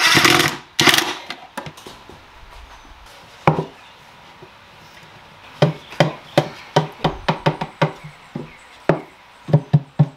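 A cordless driver runs a screw into plywood and cuts off just after the start. Then plywood panels knock and tap against each other as a loose divider is worked into a plywood box: a few single knocks, then a quicker run of knocks, two or three a second, in the second half.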